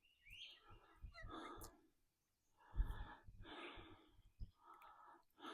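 A man's heavy breathing, several faint breaths in and out. The breathing is laboured from chest congestion and bronchitis.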